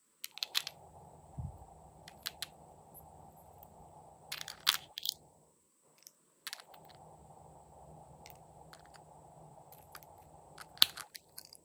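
Glossy slime being squeezed and poked by hand, giving sharp clicks and pops as trapped air bursts, with the loudest pops about four and a half seconds in and again near the end.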